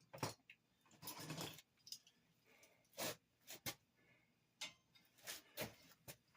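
Scattered metallic clicks and clinks of vice-grip locking pliers being handled and clamped, with a short rasping scrape about a second in.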